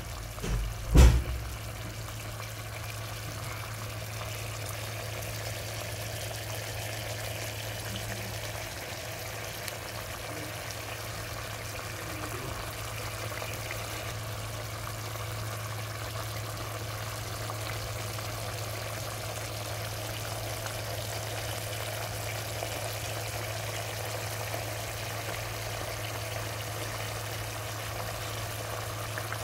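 Meatballs and pineapple simmering in sauce in a pan: a steady bubbling, sputtering hiss over a constant low hum, with one sharp knock about a second in.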